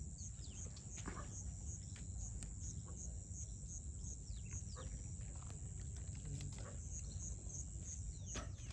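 Insects trilling steadily at a high pitch, with an even pulse about twice a second, over a constant low rumble. A few faint falling chirps and clicks come and go.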